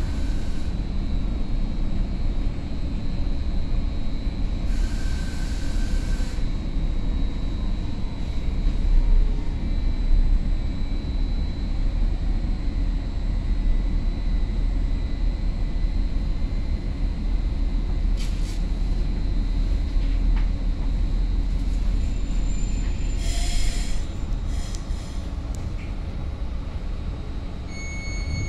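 Cabin sound of a Caltrain Stadler KISS electric multiple unit running: a steady low rumble of wheels and running gear on the rails with a faint steady electric whine. Two brief hissing bursts come about 5 and 23 seconds in, and the rumble eases a little near the end as the train slows for a station, where a thin steady high tone begins.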